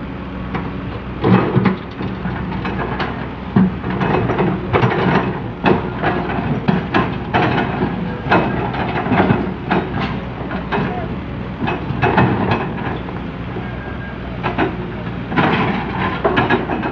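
Komatsu PC200CE excavator digging soil: its diesel engine runs steadily under a string of sharp, irregular clanks and scrapes from the bucket and arm working the ground.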